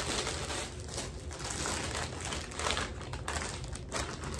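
A plastic Temu shipping bag crinkling and rustling with irregular crackles as it is handled.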